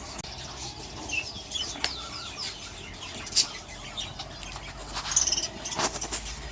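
A flock of aviary budgerigars chirping and chattering in many short rising and falling calls, with a few sharp clicks and some wing flutter.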